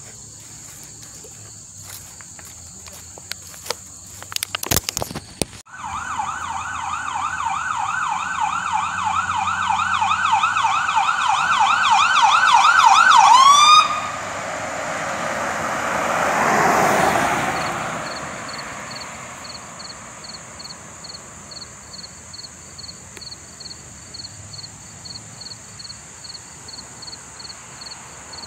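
An emergency vehicle's siren on a fast yelp, warbling about three times a second, comes in about six seconds in, grows louder as it approaches and cuts off with a last sweep; the vehicle then passes close by in a rush of tyre and engine noise that fades. Insects buzz steadily at a high pitch throughout, joined near the end by an even chirping.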